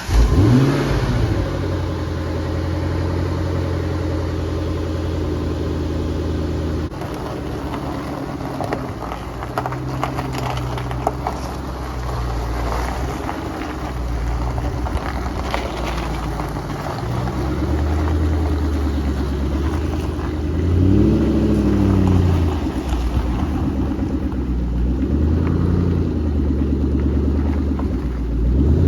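MG X-Power SV's V8 engine running at idle just after starting, with brief blips of the throttle where the revs rise and fall: one at the start, then several in the second half.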